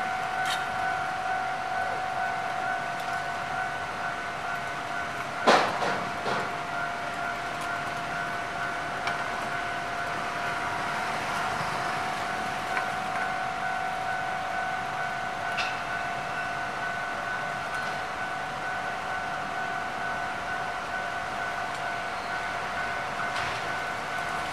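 A steady high tone with a fainter overtone holds without a break, and a single sharp knock comes about five and a half seconds in.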